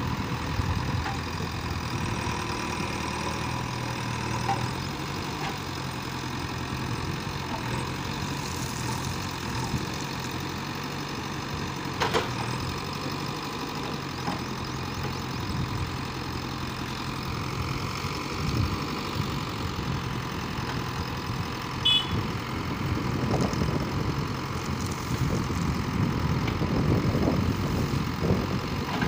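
JCB 3DX backhoe loader's diesel engine running steadily while the backhoe digs and shifts soil. There is a sharp clank about twelve seconds in, and the engine grows louder for a few seconds near the end.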